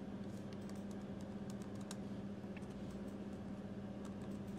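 Computer keyboard typing: faint, irregular key clicks as a word is typed, over a steady low hum.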